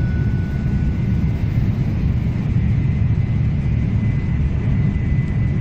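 Steady low rumble of a Tokaido Shinkansen train running, heard from inside the passenger car. The last tones of the arrival chime fade out at the start, and a faint steady high whine comes in about halfway through.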